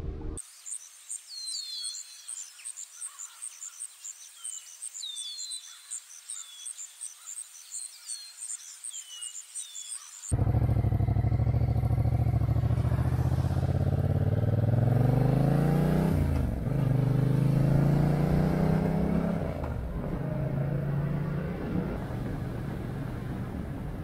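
Birds chirping, a rapid high repeated note with scattered short falling calls beneath it. About ten seconds in, a motorcycle engine comes in suddenly and much louder, accelerating with its pitch rising, dropping once and rising again, then running steadily.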